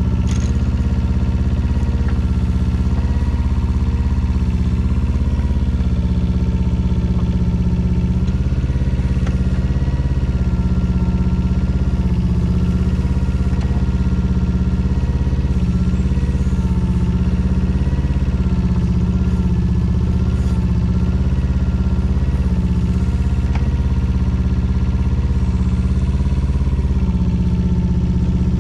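Small Yanmar diesel engine of a Daewoo Solar 010 mini excavator running steadily, its pitch wavering and dipping slightly now and then as the boom is worked with the hydraulic levers.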